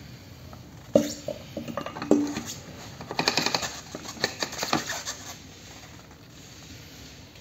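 Metal parts of an e-bike hub motor clinking and knocking as they are handled and seated together: a sharp knock about a second in, then a run of quick metallic clicks between about three and five seconds.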